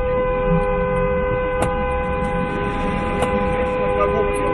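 A car horn held down without a break, two steady tones sounding together, over the low rumble of idling traffic; two sharp clicks cut through it.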